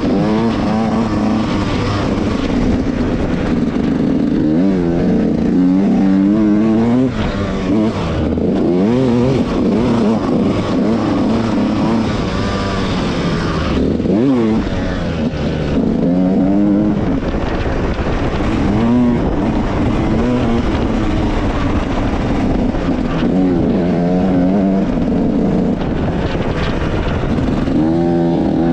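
Yamaha YZ125X 125 cc single-cylinder two-stroke dirt bike engine under hard riding, its revs climbing steeply and dropping again every few seconds as the throttle is worked on and off.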